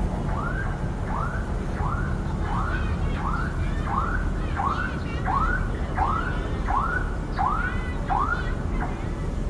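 A short rising chirp repeated about twelve times, roughly one and a half a second, like a warning alarm, over a steady low engine rumble.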